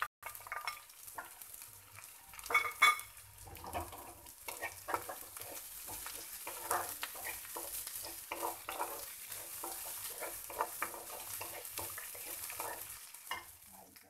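Wooden spatula stirring and scraping chopped onion, green chilli and ginger as they fry in oil in a kadai, with a steady light sizzle under the strokes. A couple of louder clacks come about three seconds in.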